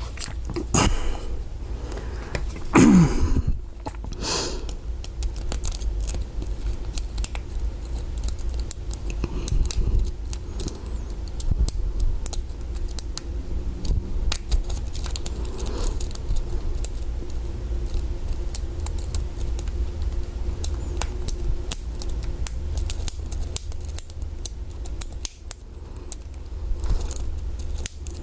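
Small metallic clicks and scrapes of a hook pick and tension wrench working the pins of a Master Lock 140 padlock, mixed with the clink of the padlocks being handled. There is a louder clatter about three seconds in.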